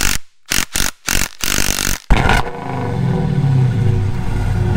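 A quick run of short, sharp bursts of noise with gaps between them, then, about two seconds in, an engine starts running steadily with a low, even note.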